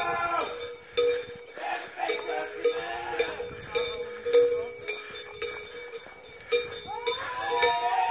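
Large cowbells worn by costumed devils clanking and ringing as they walk, with one steady ringing tone under the clatter. A wailing sound that slides in pitch fades out at the start and comes back about seven seconds in.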